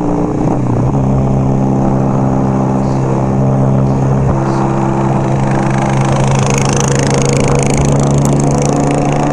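Motorcycle engine running steadily at road speed while riding; its pitch drops about a second in, then holds steady.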